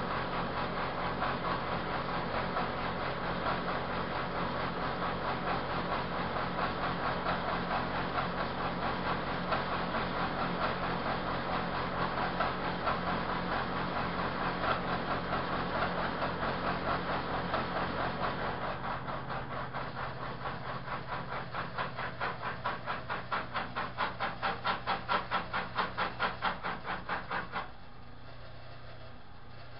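Manual milling machine cutting a flute into a steel rifle barrel: steady machining noise with a fast chatter from the cutter. In the later part the chatter turns into a pulsing beat of about two to three a second, then the cutting stops suddenly near the end, leaving a quieter steady hum.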